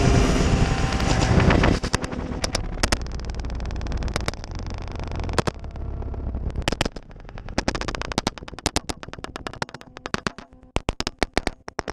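Hip-hop music cuts off about two seconds in. It leaves a low rumble and a quick, irregular run of sharp knocks and crackles as the GoPro tumbles across the road after coming off the crashing motorcycle.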